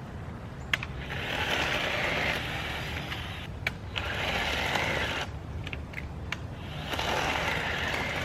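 Cordless electric JawSaw chainsaw cutting through small branches: three cuts of a couple of seconds each, with a few sharp clicks in the short gaps between them.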